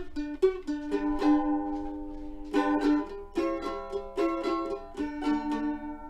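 Background music: plucked string instrument, ukulele- or mandolin-like, playing a melody of quick notes and held chords.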